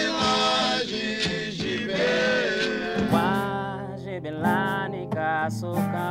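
A man singing a slow melody; about three seconds in it changes to a man singing to his own classical acoustic guitar, with plucked notes and a bass line under the voice.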